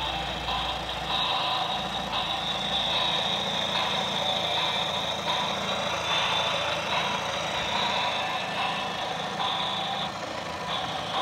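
Adventure Force toy Dodge Viper's button-activated engine sound effect: a recorded idling engine played steadily through the toy's small built-in speaker.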